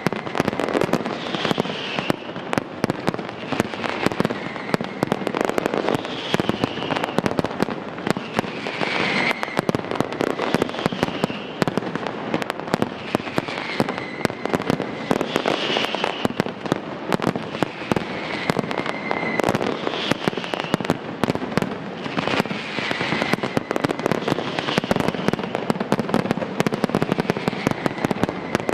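A fireworks display in a dense barrage, with bursting shells and crackling stars in rapid succession and no let-up. A falling whistle-like tone comes back about every two seconds through the bangs.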